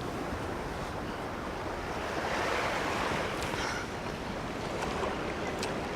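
Ocean waves washing on a shore, with wind; one wave swells louder about two seconds in.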